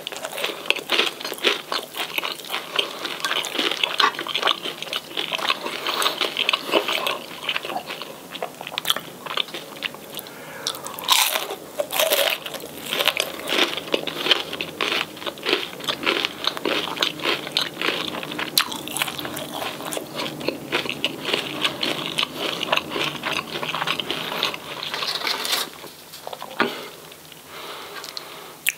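Close-miked chewing and crunching of crispy fried fish and chips, with many irregular crunches and bites. It goes quieter for a moment near the end.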